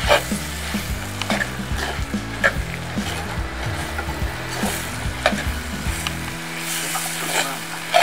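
Fish pieces frying in masala in a clay pot, with a steady sizzle, while a metal slotted spatula stirs them and scrapes and taps against the pot about every half second.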